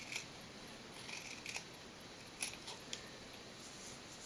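A few faint, sharp small clicks scattered over quiet room hiss.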